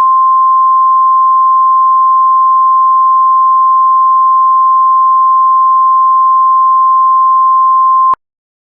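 NOAA Weather Radio 1050 Hz warning alarm tone, the attention signal that opens an Emergency Alert System alert. It is one loud, steady pure tone that cuts off suddenly about eight seconds in.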